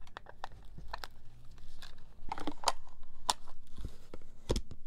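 Irregular small clicks, scrapes and snaps of the screwed-in battery being worked loose and lifted out of a NAVIS Orion handheld GLONASS navigator's case, with a few sharper snaps in the second half.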